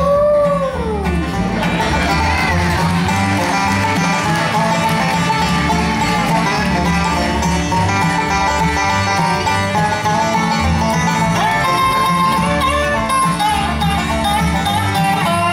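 Live bluegrass band playing an instrumental break between verses of a train song: a banjo lead over guitar and a pulsing bass. It opens with a brief note that slides up and falls away.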